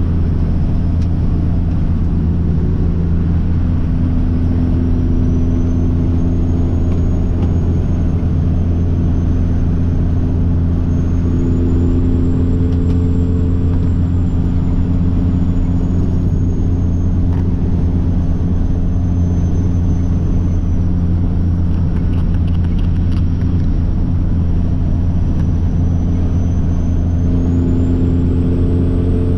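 Peterbilt truck's diesel engine droning steadily while driving, with a faint high whine that rises and falls in pitch a few times.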